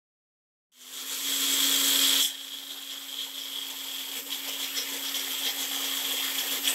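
Magic Bullet personal blender motor running at high speed, grinding grated coconut and sambar powder with a little water into a smooth paste. It starts about a second in, runs loudest for the first second and a half, then drops to a lower, steady whir.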